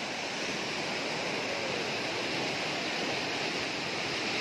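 Steady rushing of a small rocky waterfall, fast muddy water pouring down a stone chute. The stream is swollen and running fast.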